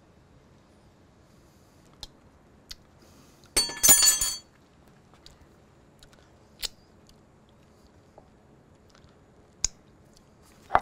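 A metal spoon clinking against a glass mixing bowl about four seconds in, a brief ringing clink struck a couple of times. Otherwise only a few faint mouth clicks and lip smacks while the ranch dressing is tasted.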